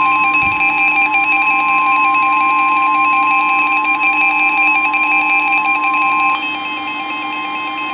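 NOAA Weather Radio's 1050 Hz warning alarm tone, one steady loud tone, with weather radio receivers' pulsing alert beeps sounding over it. About six seconds in, part of the beeping changes and drops away, and the whole gets slightly quieter. The tone heralds a warning about to be broadcast.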